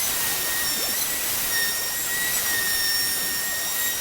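Electric power sander running steadily on a wooden tabletop, stripping the old finish: a loud hiss with a high whine that wavers slightly in pitch as the tool is worked.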